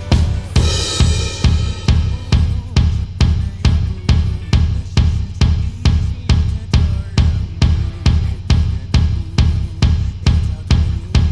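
Drum kit playing a steady beat of about two strokes a second, with the bass drum on every beat and a cymbal crash about half a second in. The song itself plays faintly underneath.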